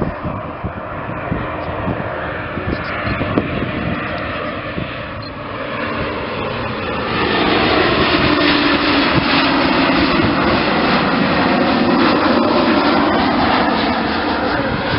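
LOT Embraer 195 airliner on final approach, gear down, its CF34 turbofan engines' whine and rumble building and growing loud about halfway through as it passes, with tones that fall in pitch as it goes by.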